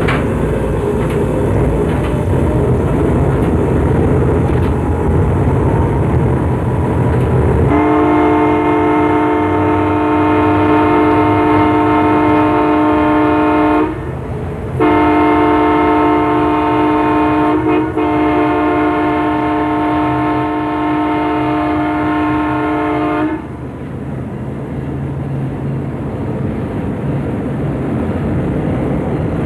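Diesel locomotive running under load from the cab, with its multi-tone air horn sounding about 8 seconds in: a long blast, a short break, then two more long blasts run almost together and held until about 23 seconds in, the horn signal for an approaching road crossing. The engine rumble carries on after the horn stops.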